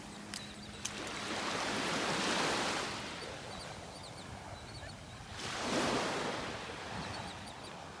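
Small waves of the Gulf of Mexico washing onto the beach: two swells of surf about three seconds apart, each building and fading away. Faint, short, high bird chirps come between them.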